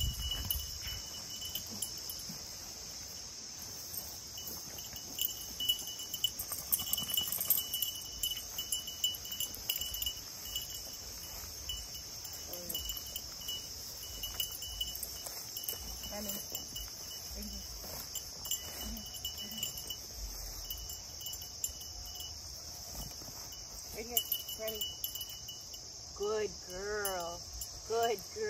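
Field insect chorus: a steady high buzz with a cricket's pulsing chirp coming and going over it. Near the end a few short pitched sounds rise and fall over it.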